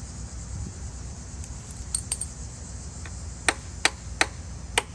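Light metallic clicks and taps of a wrench against a Honda Spree scooter's carburetor: a few faint ones about two seconds in, then four sharp taps roughly a third of a second apart near the end. The tapping is aimed at freeing the float, which may be stuck.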